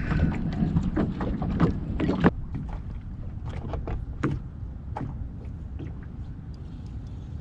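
Small fishing boat on open water: scattered light knocks and clicks over a steady low rumble, busier in the first two seconds and then fainter.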